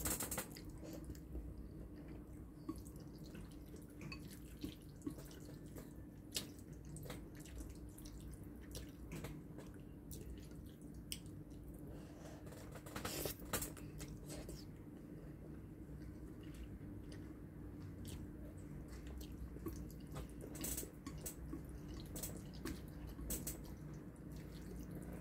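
Close-up mouth sounds of spaghetti being slurped and chewed: short wet smacks and slurps scattered throughout, with occasional light clicks of chopsticks against a ceramic bowl, over a steady low hum.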